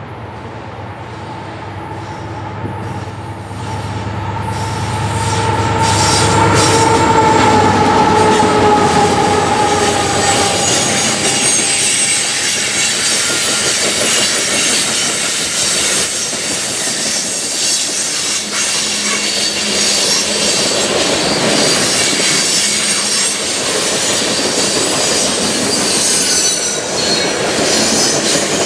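Two GE AC4400CWM diesel-electric locomotives approach and pass under power, getting louder, with a tone that slides down in pitch as they go by about seven to nine seconds in. Then the loaded train of ballast cars rolls past on a curve, wheels squealing against the rail, with clicking over the rail joints.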